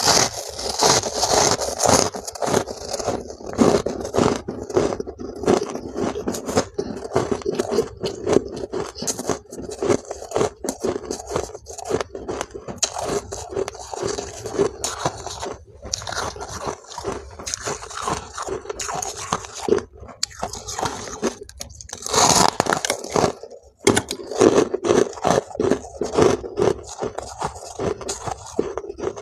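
Close-up biting and chewing of white, powdery frost-ice: a dense, continuous crackle of crunches, with one brief pause about three quarters through.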